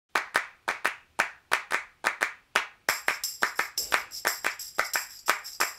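Background music intro: a rhythmic pattern of sharp handclaps, joined about three seconds in by high, sustained shimmering tones.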